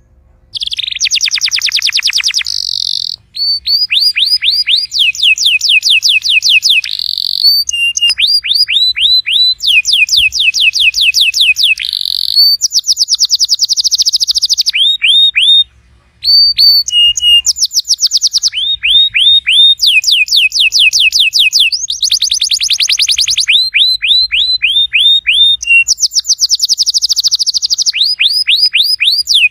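Domestic canary singing a long song made of rapid trills, each a quick run of the same falling note repeated, switching to a new trill every second or two, with two short pauses, about three seconds in and about halfway through.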